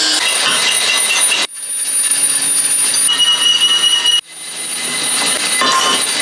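Power tool working on metal: a loud, high-pitched screech with steady whining tones. It cuts off sharply twice and builds back up each time.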